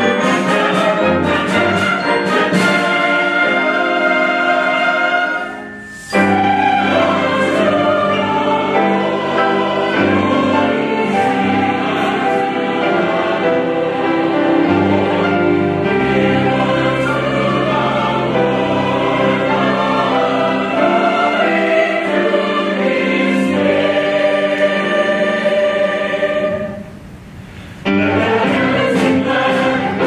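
Mixed choir singing with a band of brass, saxophones and keyboard. The music drops away briefly twice, at about five and a half seconds and again near the end, then comes back in full.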